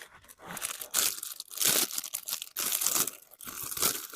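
Plastic instant-noodle packaging crinkled and crumpled by hand in irregular bursts.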